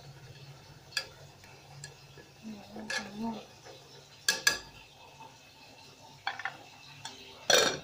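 Chopsticks stirring in a small metal pot on a gas stove, with scattered sharp clinks against the pot. A close pair of clinks comes a little past the middle, and the loudest knock comes near the end.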